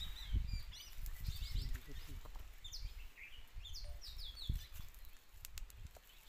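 Small birds chirping in quick clusters of short, sliding notes, over a low irregular rumble on the microphone.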